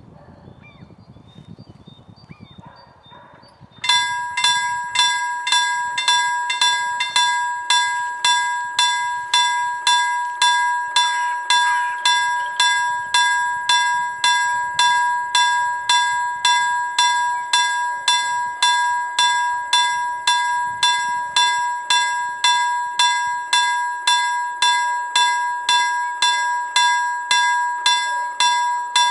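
Railway level crossing warning bell starting up about four seconds in and ringing steadily, about two strikes a second. It warns of an approaching train while the crossing barriers lower.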